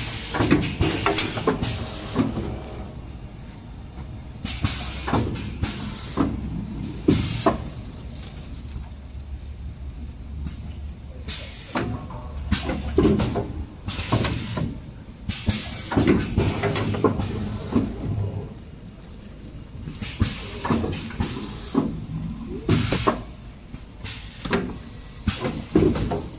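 Kitchen towel bundle packing machine running: a steady low hum, with short hissing bursts every few seconds and scattered knocks as each pack of rolls is pushed through and wrapped in film.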